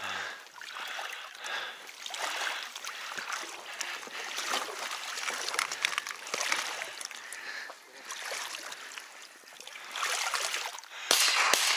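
Water splashing and trickling close beside an inflatable boat, coming and going with scattered light knocks, and louder near the end.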